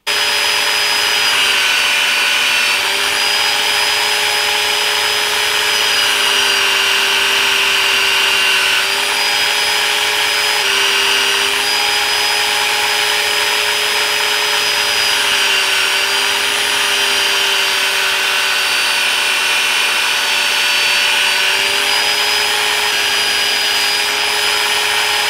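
Electric belt sander switching on abruptly and running steadily, used as a stationary sander while oak is shaped against the moving belt; its pitch dips slightly a few times.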